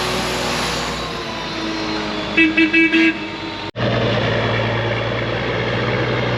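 A vehicle's engine running steadily, with its horn tooted about four times in quick succession about two and a half seconds in. A little later the sound cuts off abruptly and gives way to a steadier low engine hum.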